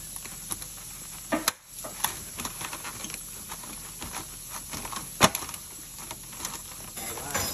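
Paper towel crinkling and rustling as hands press and pat asparagus spears dry, with a few sharp clicks, the loudest about five seconds in.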